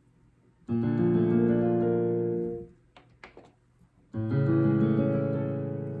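Roland FP-90X digital piano playing two short chordal phrases of about two seconds each, with a pause between them.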